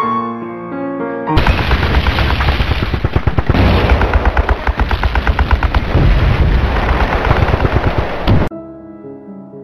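Piano music, abruptly replaced about a second in by a loud, fast rattling run of sharp knocks over a deep rumble, like machine-gun fire. It cuts off suddenly near the end, and soft piano music resumes.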